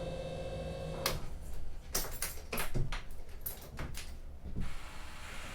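A steady electronic tone cuts off about a second in, then a run of clicks and knocks follows as the boat's electrical switches and panels are worked and its systems come back on.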